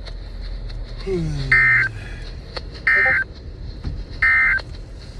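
Emergency Alert System end-of-message data bursts on NOAA Weather Radio: three short, buzzy two-tone bursts, each about a third of a second long and about 1.4 s apart, marking the end of the alert. A faint falling tone sounds just before the first burst.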